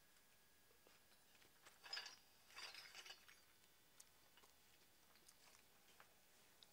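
Faint clinks and scrapes of fired terracotta pots being handled and set down on the ground, with a short cluster about two seconds in and another just after, and scattered light ticks.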